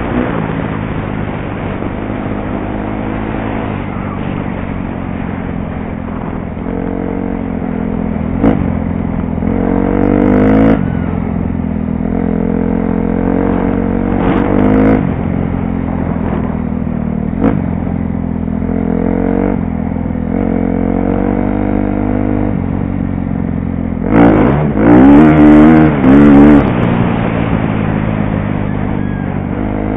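2012 KTM 250 SX-F's single-cylinder four-stroke engine running under load as the dirt bike is ridden along a trail, picked up by a helmet camera. The engine revs up and eases off several times, and the hardest revving comes near the end.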